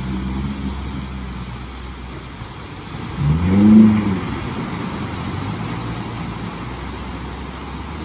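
Small motorboat's engine running steadily, then revving up and easing back about three seconds in as the boat drives through a breaking wave at the shoreline.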